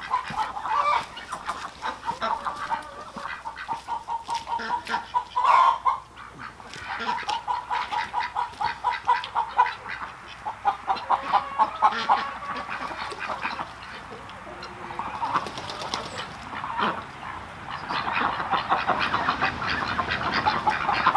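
Chickens and ducks calling in rapid runs of short, repeated notes.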